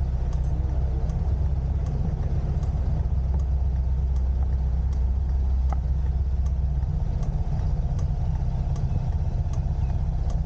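Motor scooter engine idling steadily, with a faint tick recurring about every three quarters of a second; the deepest part of the idle drops away about seven seconds in.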